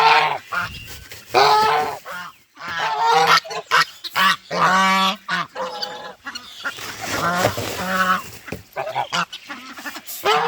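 A flock of geese honking, loud calls following one another in quick succession.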